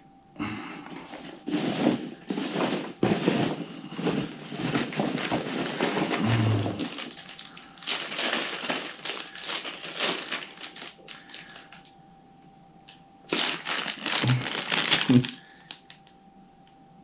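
Hands rummaging through polystyrene packing pieces and plastic snack packets in a box: irregular bursts of rustling and crinkling that stop twice for a few seconds.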